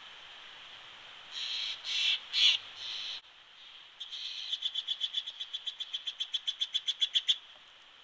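Steller's jay giving four harsh, scratchy calls, then a rapid rattle of about seven or eight clicks a second that grows louder and stops suddenly; the rattle is a female Steller's jay's call.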